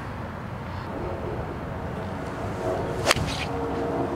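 A golf shot: a club strikes the ball once about three seconds in, a single sharp crack, over a steady low background rumble.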